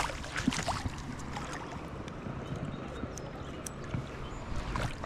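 Steady rushing noise of river water, with a faint voice briefly near the start.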